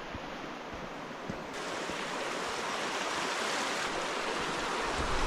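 Steady rushing of a river's flowing water, a continuous hiss that swells a little about a second and a half in, with a low rumble joining near the end.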